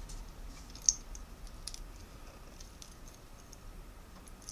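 Light clicks and clinks of a metal link watch bracelet being turned over in the fingers, with one sharper click about a second in.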